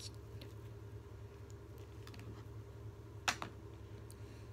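Small scissors trimming off excess clear thread: a light click at the start and a sharper snip about three seconds in, over a low steady hum.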